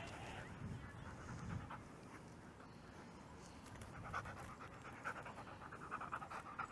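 A Whoodle dog panting, faint quick breaths that come through more plainly in the second half.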